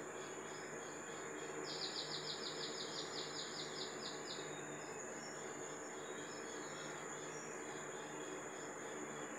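Outdoor chirping ambience: faint repeated chirps throughout, with a louder run of about a dozen quick, evenly spaced chirps, about five a second, from about one and a half to four and a half seconds in. Under it run a thin steady high whine and a low steady hum.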